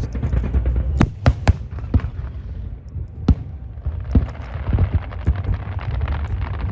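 Aerial fireworks bursting overhead: a quick run of sharp bangs in the first few seconds, then smaller bangs and crackling, over a steady low rumble.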